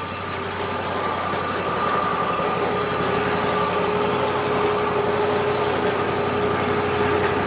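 Wood-Mizer LT40 hydraulic band sawmill running at a steady hum, its engine and drive holding an even pitch with no cut being made.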